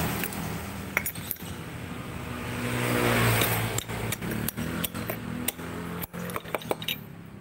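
A passing vehicle's engine hum swells to a peak about three seconds in and then fades. Over it come many sharp metallic clicks and clinks from a steel rod working against a bearing and circlip set in a scooter's CVT pulley.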